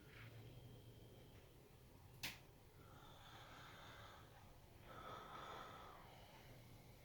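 Near silence: faint room tone with a single short click about two seconds in.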